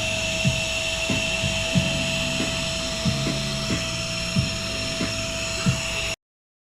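Single-motor cordless handheld vacuum running steadily with a high whine and a hiss of air, a soft low knock recurring about every two-thirds of a second underneath. It cuts off suddenly near the end.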